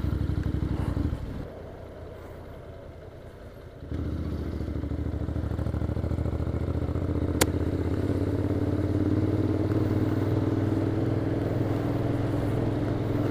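Motorcycle engine running steadily while riding, heard from the bike. The engine note drops quieter about a second in and comes back louder and steady about four seconds in. A single sharp click is heard about seven seconds in.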